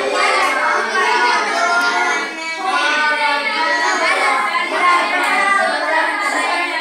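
A group of children singing together, their voices running on without a break.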